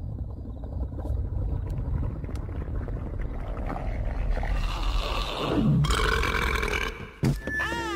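Animated film soundtrack: a cartoon monster's long, rough yell that builds to its loudest about six seconds in, over a low rumble. A sharp knock follows near the end, then quick rising-and-falling chirps.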